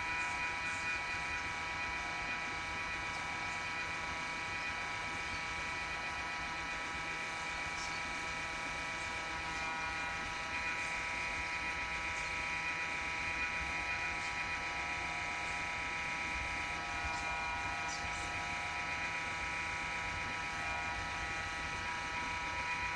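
A steady hum made of several high tones over a low rumble, holding level without a break.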